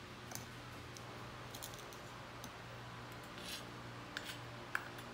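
Metal spatula scraping and tapping against a small metal measuring cup as brown sugar is scooped and levelled off: faint, scattered clicks and short scrapes, over a steady low hum.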